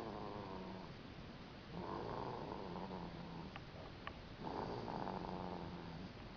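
Snoring in a slow, even rhythm: a long noisy breath about every two and a half seconds, with a low hum between breaths.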